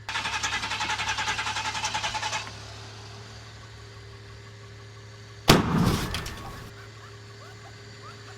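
A van's starter cranks the engine with a fast, even chugging for about two and a half seconds without it catching. About three seconds later comes a single loud bang that dies away over a second, as the hard-starting engine begins to fire.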